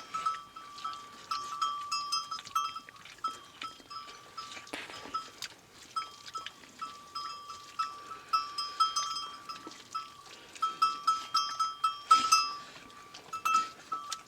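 Small metal bells worn by sheep ringing in quick, irregular clusters of strikes as the flock moves, the same bell pitch coming again and again.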